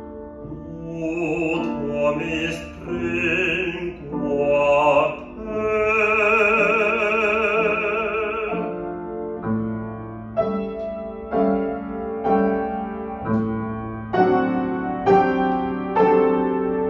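Male classical singer performing an Italian art song with vibrato over Yamaha grand piano accompaniment, ending his phrase on a long held note about six seconds in. From about nine seconds the grand piano plays alone, a run of repeated chords.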